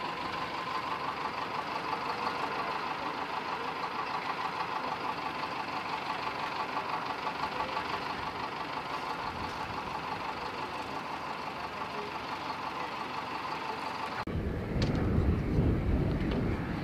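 F-35 fighter's jet engine running on the ground: a steady whine and hum. About fourteen seconds in it cuts abruptly to low, gusty wind rumble on the microphone.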